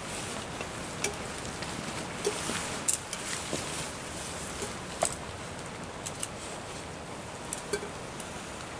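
Steady rain, with fabric rustling as a rain poncho and tent are handled, and a few sharp clicks and taps, the loudest about three and five seconds in.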